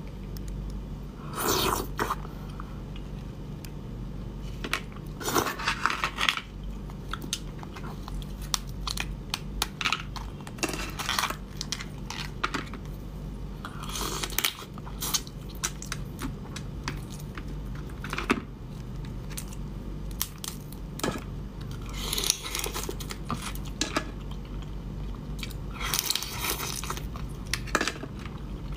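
Crab being eaten up close: the shell is cracked and pried apart by hand and bitten, giving clusters of crunching and crackling every few seconds between quieter chewing. A steady low hum runs underneath.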